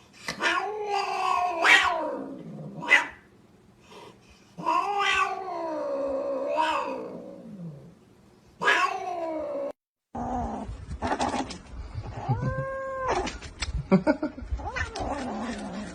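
Domestic cat caterwauling: three long, drawn-out yowls whose pitch bends up and down. About ten seconds in the recording changes to a noisier one with clicks and a brief higher call.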